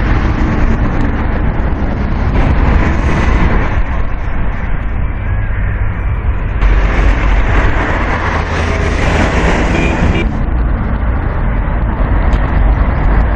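Steady road traffic noise with a heavy low rumble. Its character changes abruptly about six and a half seconds in and again around ten seconds, where the footage is cut.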